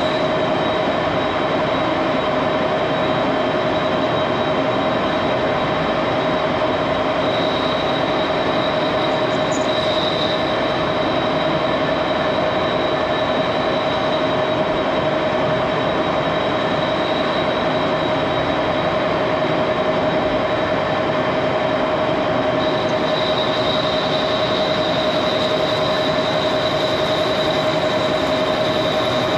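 Old engine lathe running, its chuck spinning an aluminium part: a loud, steady whine over a dense mechanical din. A thin, higher squeal joins a few seconds in and again for the last several seconds.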